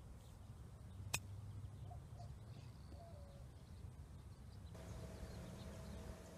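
A single sharp click of a 56-degree wedge striking a golf ball on a chip shot, about a second in, over a faint low wind rumble. A few faint bird chirps follow.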